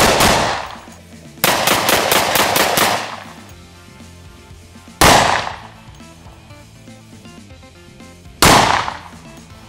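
IMI Desert Eagle .357 Magnum semi-automatic pistol firing: a quick string of shots from about a second and a half to three seconds in, then two single shots about five and eight and a half seconds in, over quiet background music.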